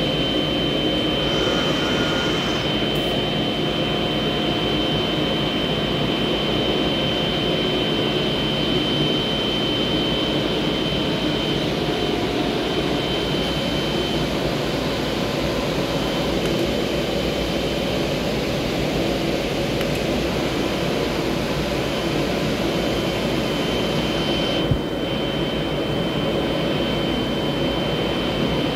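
Kongsberg MultiCUT flatbed cutter running while it trims printed drum-wrap laminate: a steady, loud rushing of air, as from its vacuum hold-down blower, with a high whine that comes and goes. One sharp tick sounds late on.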